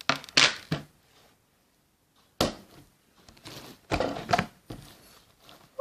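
Hands working a bead-filled slime: short crackling, squishing handling noises, with a sharp click about two and a half seconds in.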